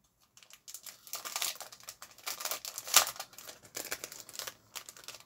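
Plastic packaging of a set of metal craft cutting dies crinkling and rustling as it is handled and opened by hand, with one sharp click about three seconds in.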